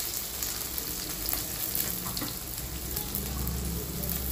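Chopped onions sizzling in hot oil in a kadai, freshly tipped in: a steady frying hiss with scattered small pops.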